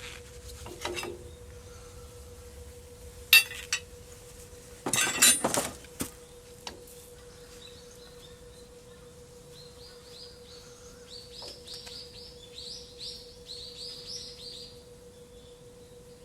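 Metal clinking a few times, with the loudest cluster about five seconds in, over a steady hum. Later a bird sings a run of quick descending chirps.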